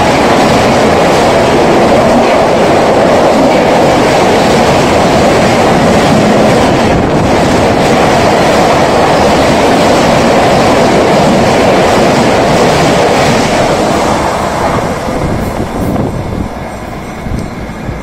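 Loud, steady rush of the coaches of an express train passing at high speed, around 130 km/h: wheels on rail and air noise. It fades away about fourteen to sixteen seconds in as the last coach goes by.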